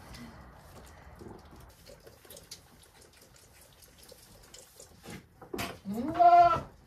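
Goat kids sucking on feeding bottles, with soft wet clicks and slurps. Near the end a goat bleats once, loudly, for under a second.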